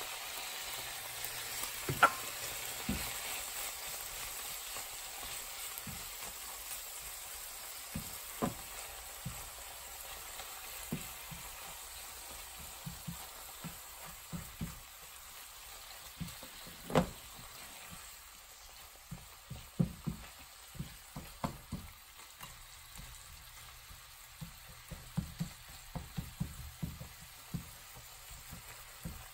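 Squid and kimchi sizzling in a nonstick frying pan while being stir-fried with a silicone spatula, which knocks and scrapes against the pan. The sizzle slowly fades, and the spatula taps come more often in the last third.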